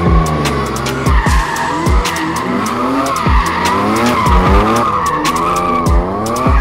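BMW E36 drift car's engine revving up and down repeatedly while its tyres squeal, as the car does donuts on slippery concrete. A music track's beat thumps underneath.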